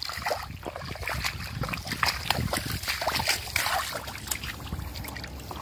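Irregular wet squelching and splashing in thick swamp mud as a large fish is handled and dropped into a bucket.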